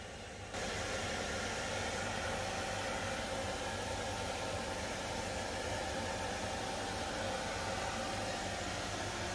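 Spray booth extraction fans running: a steady whirring hiss with a few faint humming tones, which comes in suddenly about half a second in.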